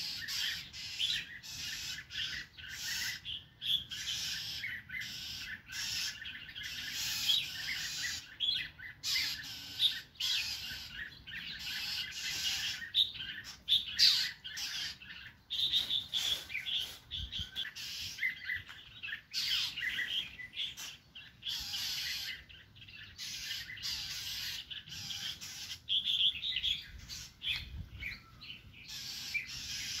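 Songbirds, the parent northern cardinals among them, giving a rapid, nearly continuous run of sharp chip calls: alarm calls at a hawk near their newly fledged young.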